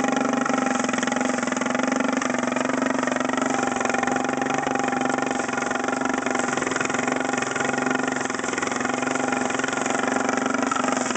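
Small single-cylinder lawn mower engine with a loud exhaust running steadily at a constant speed, with only slight wavers in level.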